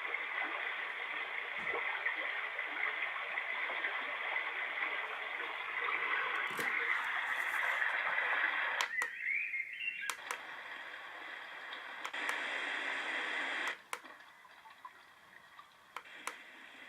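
Small white noise machine speaker playing a steady, water-like hiss, thin and without bass. There are a few sharp clicks, and the hiss drops away suddenly about three-quarters of the way in.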